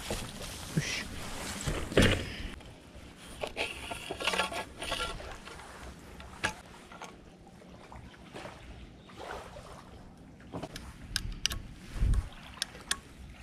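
Hollow camp poles and a folding cot frame being handled and fitted together: scattered clicks and knocks, the loudest about two seconds in. Wind buffets the microphone near the end.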